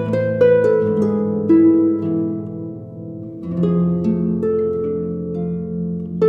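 Closing music: plucked harp-like notes, struck a few at a time and left to ring over a low sustained bass.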